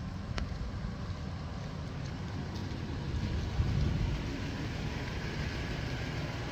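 Steady low outdoor rumble, uneven in level, with a faint click about half a second in.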